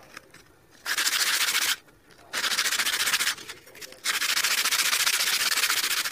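Sandpaper wrapped around a roll being rubbed quickly back and forth along a thin wooden stick, sanding it down. Three bursts of rapid strokes, the last one the longest.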